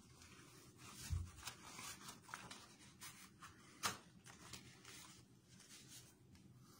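Faint rubbery rustling and scattered clicks of disposable gloves being peeled off the hands, with a soft thump about a second in and a sharper snap just before four seconds.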